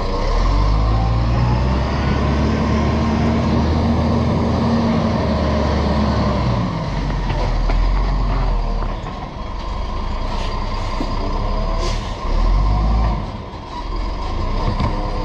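Diesel engine of a side-loader garbage truck running as it drives up and stops at the kerbside bins, louder for the first half and then easing, with a brief sharp sound about twelve seconds in.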